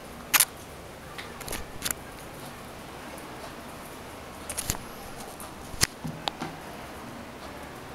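A handful of sharp clicks and scuffs, the loudest about half a second in: Chihuahua puppies and their mother scrambling in play, their claws clicking on a tiled floor.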